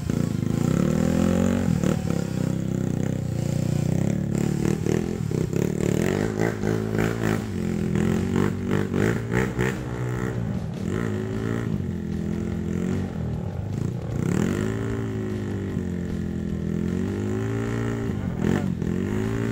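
Trail motorcycle engine revving up and falling back over and over, with clattering knocks, as the bike struggles through deep mud on a climb.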